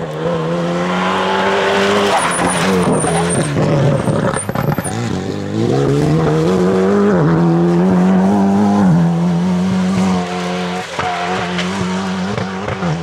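Alpine A110 rally car's 1.8-litre turbocharged four-cylinder engine at full race revs as the car passes. The engine note drops sharply a few seconds in as it slows for the bend, with a brief high-pitched squeal. It then climbs back up under hard acceleration and holds high, and steps down with a gear change near the end as the car pulls away.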